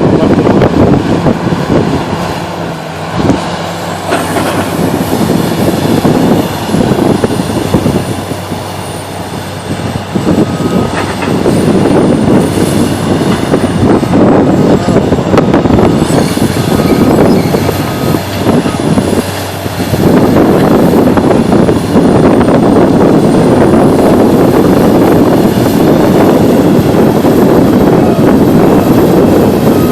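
Excavator's diesel engine working under load, its level swelling and dipping as it digs, with a high whine rising and falling above it. A reversing alarm beeps briefly a few times.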